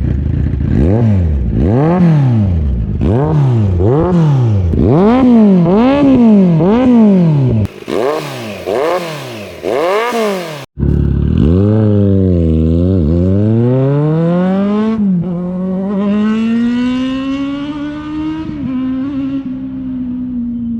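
Kawasaki Z900's inline-four engine through a Racefit aftermarket exhaust, blipped in quick repeated revs about once a second. After a cut, the engine speed drops and climbs again, then rises steadily for several seconds under acceleration.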